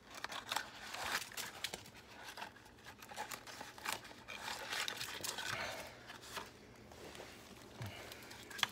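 Wrapper of a chewy-candy stick pack crinkling and tearing as it is opened by hand: a run of irregular crackles and rustles.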